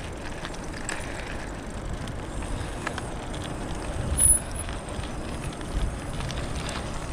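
Electric bike rolling slowly over a gravel path: a steady crunch and rush of tyres on loose gravel, with wind rumbling on the microphone. There is a louder low thump about four seconds in.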